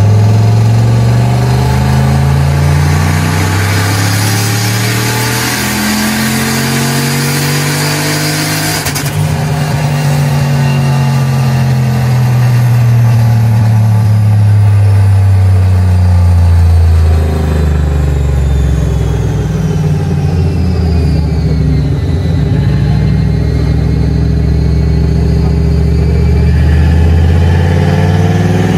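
Turbocharged Ford Mustang 4.6-litre two-valve V8 making a wide-open-throttle pull on a chassis dyno, its exhaust going through a Flowmaster 10 Series chambered muffler with the electric cutout closed. The engine note climbs and falls as it revs, with a loud hiss over it that stops suddenly about nine seconds in.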